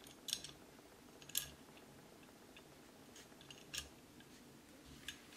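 Small parts of a Browning Hi-Power pistol's frame clicking as they are handled and fitted by hand: four sharp clicks spread over a few seconds, the second the loudest.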